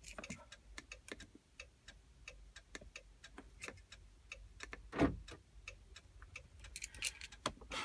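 Steady, even ticking, about three ticks a second, with one louder click about five seconds in.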